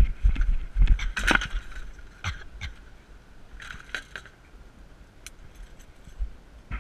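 Wind buffeting the microphone as a hang glider touches down, then scattered clinks and rattles from the glider's aluminium control frame and harness hardware on the ground, in a cluster around the middle and one sharp click near the end.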